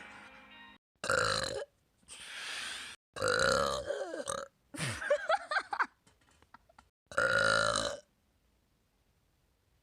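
A woman burping loudly several times in quick succession, about five separate burps, each under a second and a half long.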